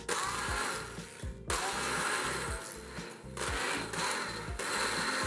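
Handheld immersion blender whirring as it purées soft steamed pumpkin chunks, running in several spells with brief stops between them.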